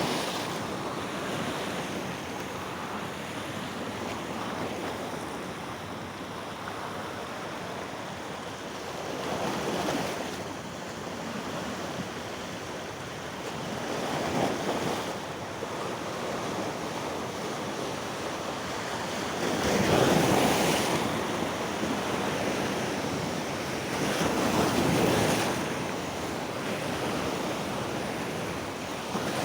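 Ocean surf washing onto a beach: a steady rush of water, swelling every few seconds as waves break, with the biggest wave about two-thirds of the way through.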